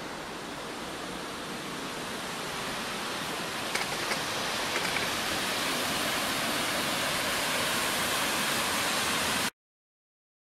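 Mountain torrent rushing over boulders in a rocky gorge: a steady rush of white water that grows slowly louder and cuts off suddenly about nine and a half seconds in.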